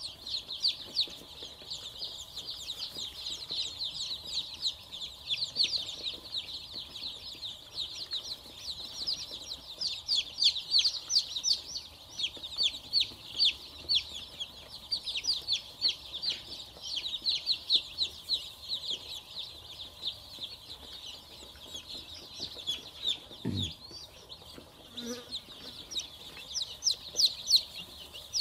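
A flock of young chicks peeping nonstop, a dense chorus of many overlapping high, short peeps that each slide downward. A single dull thump comes about three-quarters of the way through.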